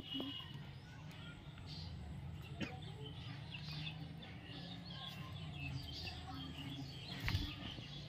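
Faint, scattered chirps of small birds calling, over a low steady rumble.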